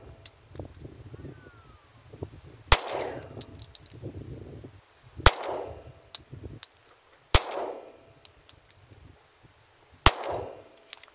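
Four single shots from a Glock 20 pistol firing 10mm 200-grain Blazer rounds, spaced about two to three seconds apart, each a sharp crack with a short echo trailing off.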